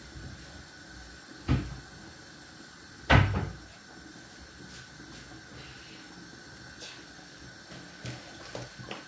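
Two dull knocks in a kitchen, about a second and a half and three seconds in, the second louder, over a steady low hiss.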